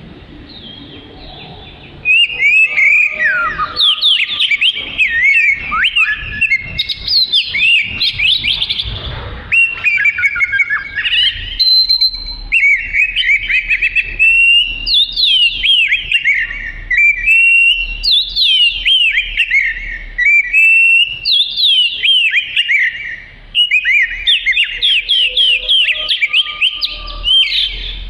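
Oriental magpie-robin singing loudly and continuously, starting about two seconds in: rapid phrases of clear whistled notes, many of them sweeping downward.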